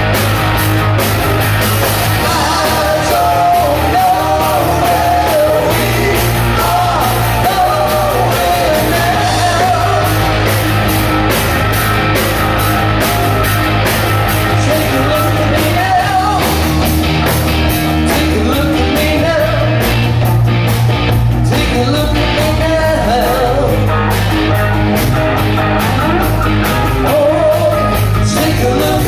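Live rock band playing an improvised number: a singer's voice over guitar, bass and drums, loud and steady, with a rough, poorly balanced recording that is called terrible sound.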